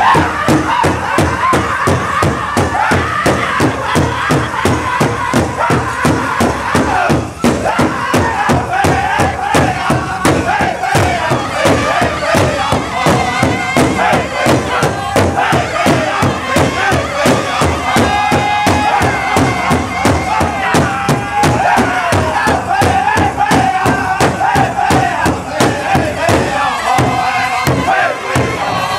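A powwow drum group strikes a large shared drum with sticks in a steady, even beat while the singers chant high-pitched in unison. The crowd around them is heard too.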